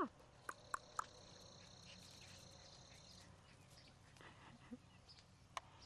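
Faint outdoor background in which a steady, high-pitched insect trill sounds for about two and a half seconds, starting about half a second in, with a few soft clicks.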